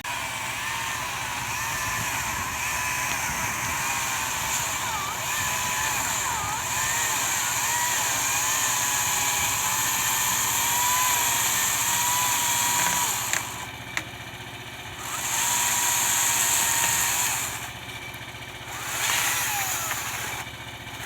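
A small electric saw running and cutting wood, its whine wavering in pitch. The sound eases off sharply three times in the last third and picks back up each time.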